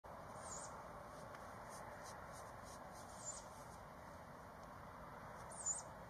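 Three short, high-pitched squeaky calls from a young owl, spaced about two and a half seconds apart over a steady background hiss, the last one the loudest.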